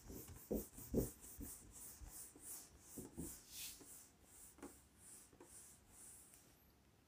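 Marker writing being wiped off a whiteboard with a cloth duster: faint, quick, repeated rubbing strokes, with a few dull knocks against the board in the first few seconds.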